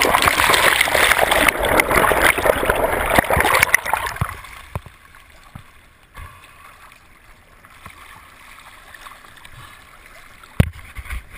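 Loud churning water and bubbles rushing over a towed underwater camera housing, dying away about four seconds in as it comes to the surface. After that there is a quieter wash of water, with one sharp knock near the end.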